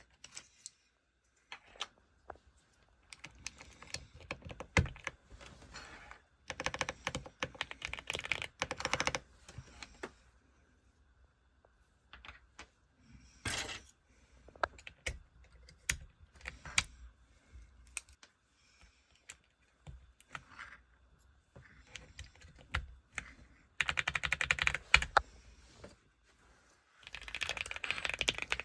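Mechanical keyboards being test-typed: bursts of rapid key clicks and clacks, broken by pauses and scattered single keystrokes.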